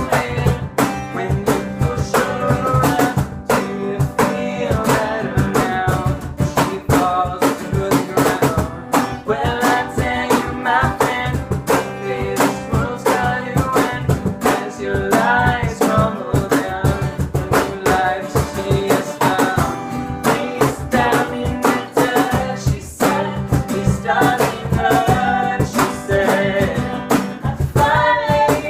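Rock song performed with guitar, a steady drum beat and singing.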